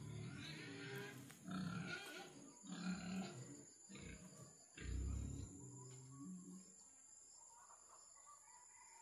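Several short, low calls from an animal over the first six seconds, then quieter, with a steady high insect whine underneath.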